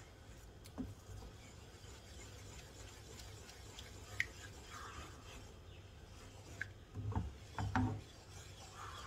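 Wooden spatula stirring and scraping a thick egg-yolk custard in a nonstick pan, with a few scattered clicks of the spatula against the pan and a cluster of louder knocks near the end.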